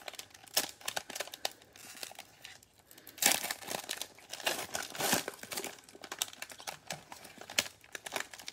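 Plastic cello-pack wrapper of 2020 Panini Mosaic football cards crinkling and tearing as it is pulled open by hand, in irregular crackles, loudest a little after three seconds in.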